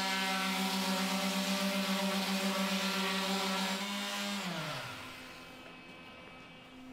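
Electric orbital finishing sander running on plywood: a steady pulsing motor hum over the hiss of sandpaper on wood. About four seconds in it is switched off and its motor pitch falls away as it spins down.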